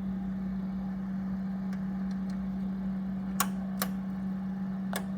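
Restored vintage radio receiver switched on and running without an antenna: a steady low hum with background hiss, broken by a few sharp clicks of static, the loudest about three and a half seconds in.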